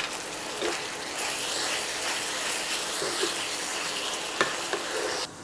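Marinated beef pieces sizzling in oil and their own juices in a frying pan while being stirred with a wooden spatula, which scrapes and knocks against the pan a few times. The sizzle grows louder about a second in and cuts off suddenly near the end.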